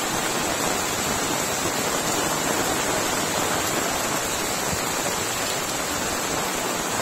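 Floodwater rushing by in a steady, unbroken wash of water noise.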